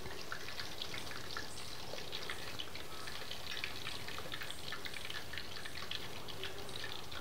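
Masala-coated chicken leg pieces deep-frying in hot oil: a steady crackle of many small pops.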